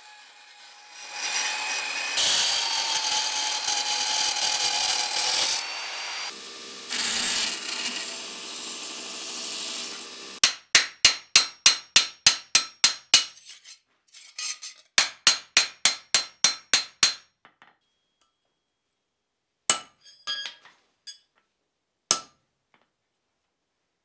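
Portable band saw cutting through rusty sheet steel, with a short break partway through. Then a hammer rings on the cut steel blank on the anvil in quick blows, about four a second, in two runs. Near the end come a few separate hammer taps.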